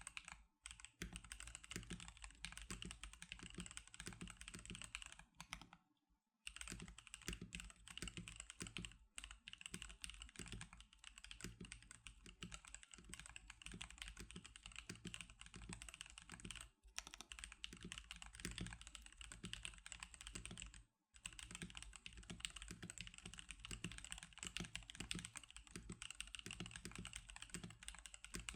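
Continuous fast typing on an NK87 custom mechanical keyboard fitted with Magic Girl keycaps: a dense run of keystroke clacks, broken by a few short pauses.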